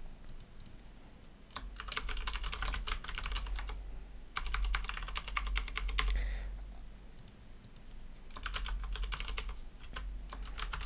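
Typing on a computer keyboard: a few scattered keystrokes, then three fast runs of keystrokes, each about two seconds long, with short pauses between.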